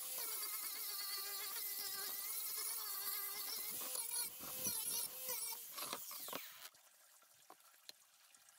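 Cordless angle grinder with a sanding disc running at high speed against the edge of a plywood panel, a high whine whose pitch wavers slightly as the load changes. It is switched off about six seconds in, and its pitch falls as it spins down.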